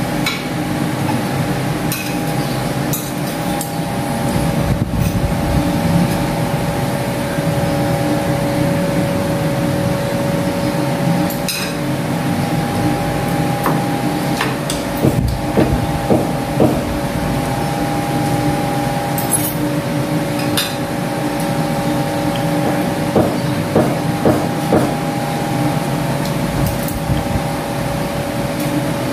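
Steady mechanical hum holding several constant tones, with forks and spoons clinking and scraping on ceramic plates; the clinks come in short clusters about halfway through and again near the end.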